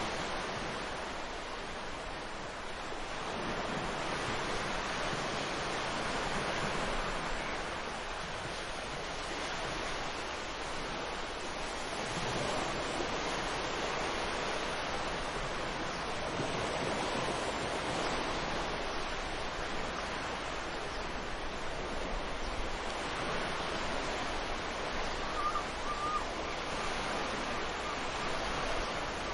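Ocean surf: a steady rush of waves breaking and washing in, swelling and easing every few seconds.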